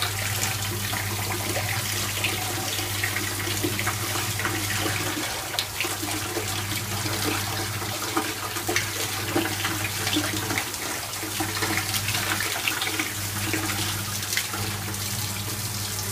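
Water from a handheld spray head running steadily onto soaked Irish moss in a plastic colander, splashing as the seaweed is rinsed and rubbed by hand. A steady low hum runs underneath.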